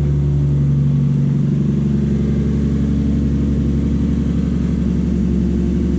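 Toyota 2JZ inline-six engine idling steadily and evenly, with no misfire now that a defective spark plug has been replaced.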